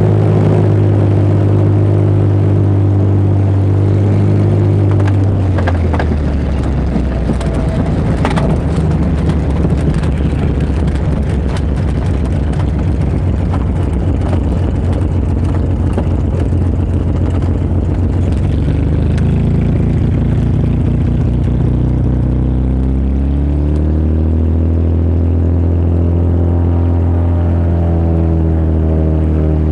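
Single-engine high-wing light plane's piston engine and propeller, heard from the cabin: a steady engine note drops about five seconds in as the plane touches down on sand, followed by the rattle and knocks of the landing roll. About twenty seconds in, the engine note rises again as power is added to taxi through the soft sand, then holds steady.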